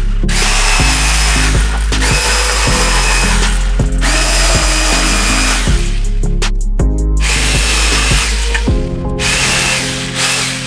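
Power drill running in five bursts of about one and a half to two seconds with a steady whine, with short gaps between and a longer pause near the middle. It is being used to fix tongue-and-groove ceiling boards. Background music with steady bass notes plays underneath.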